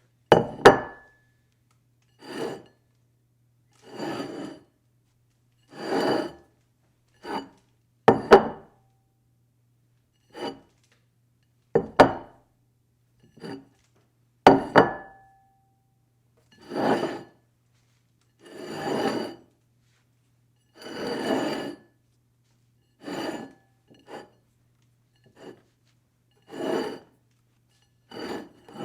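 A dish slid across a table again and again: about eighteen short scraping slides, one every one to two seconds. Several start or end with a sharp knock or clink, and a few of these ring briefly.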